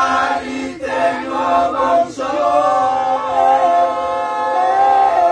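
Several men's voices singing together unaccompanied, a chant of long held notes, with short breaks about one and two seconds in.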